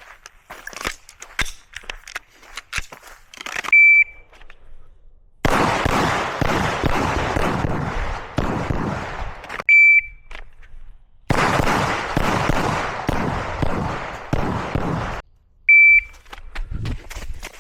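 Shot-timer start beeps, three short high beeps about six seconds apart. Roughly a second and a half after each of the first two, a Glock 34 9mm pistol fires a rapid string of shots lasting about four seconds. Scattered light clicks of handling come before the first beep.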